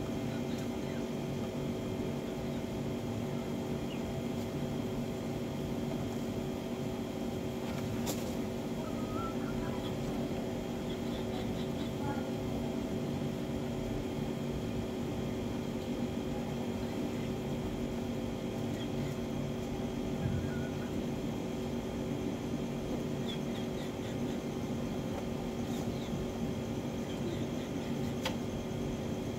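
A steady mechanical hum with several steady tones, unchanging throughout, with a few faint short chicken clucks now and then and a couple of light clicks.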